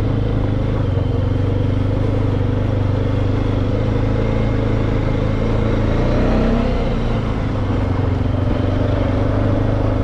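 Four-wheeler (ATV) engine running steadily while riding, its pitch rising briefly about six seconds in.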